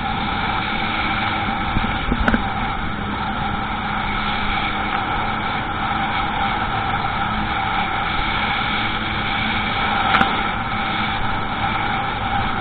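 Jet ski engine running steadily under way, a constant engine tone over rushing noise, with two brief knocks, one about two seconds in and one near the end.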